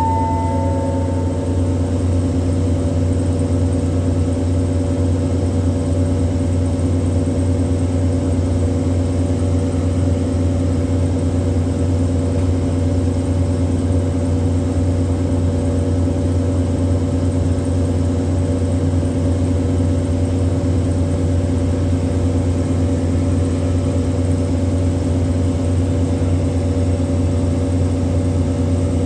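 Diesel engine on a standing passenger train idling steadily with a low, even hum. A short ringing tone sounds in the first second.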